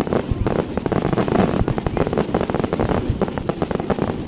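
Fireworks display: a dense, continuous run of rapid bangs and crackling, many per second.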